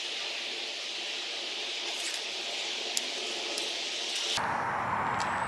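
A few sharp snips of hand pruners cutting pomegranate branches, over a steady hiss of outdoor background noise. A little over four seconds in, the background changes abruptly to a louder, deeper rush.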